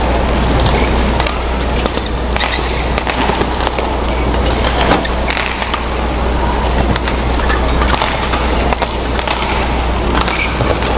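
Badminton rally: rackets striking the shuttlecock back and forth, sharp hits about every second, over steady arena crowd noise and a low hum.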